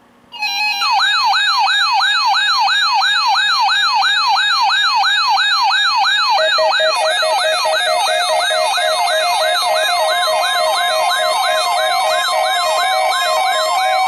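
RadioShack NOAA weather radio's built-in alert alarm going off on receiving the Required Weekly Test: a rapid, repeating rising whoop, about three a second. A fast pulsing lower beep joins about six seconds in.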